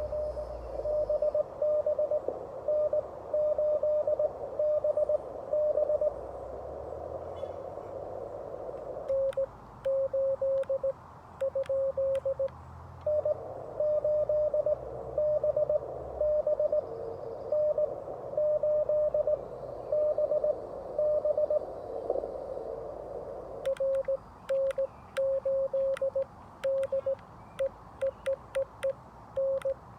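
Morse code on a Xiegu G90 HF radio: a mid-pitched beep keyed in dots and dashes. For most of the time it is another station heard through band hiss. Twice the hiss drops out and the clean sidetone of the operator's own sending comes through with the clicking of a 3D-printed paddle, briefly after about nine seconds and again for the last quarter.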